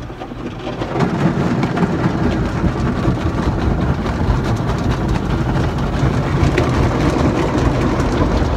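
Automatic car wash spraying water onto the car, heard from inside the cabin: a loud steady rush of water jets drumming on the roof and windows, which swells in about a second in.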